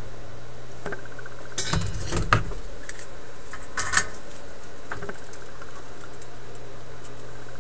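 Small metal hand tools clicking and clattering against each other and the metal chassis as needle-nose pliers work a diode lead onto a terminal and are put down, with two louder clacks about two and four seconds in, over a steady low hum.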